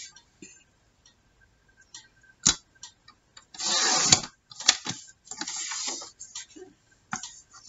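Sliding paper trimmer cutting paper: sharp plastic clicks as the cutting rail and blade carriage are handled, and two raspy swipes, each well under a second, as the blade is run along the rail through the sheet.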